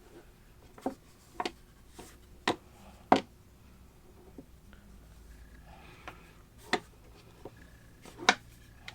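Irregular sharp clicks and knocks of a hard-plastic handheld gimbal being handled, about a dozen in all, the loudest about three seconds in and near the end.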